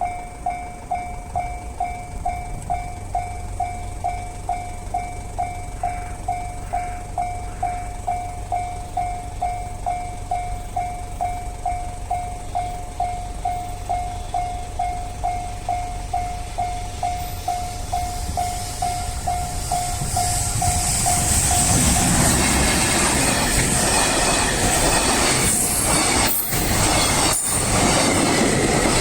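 Level-crossing warning bell ringing at about two strikes a second. About 19 seconds in a train approaches and passes, its rumble and rail noise growing loud and covering the bell.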